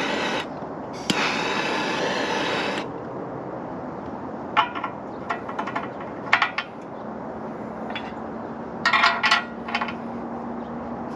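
Two steady hisses, the first short and the second nearly two seconds long, then scattered sharp metal clinks and scrapes of hand tools on the engine's exhaust, busiest about nine seconds in.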